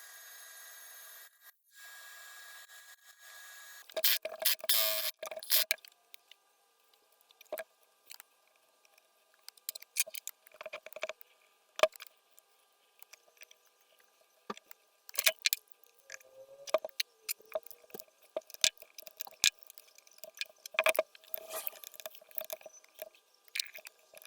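Hand tools and small metal parts clicking, tapping and scraping during bench reassembly of a diesel injection pump, in scattered bursts. A faint steady hum comes first, and the busiest run of scrapes and clicks falls about four to six seconds in.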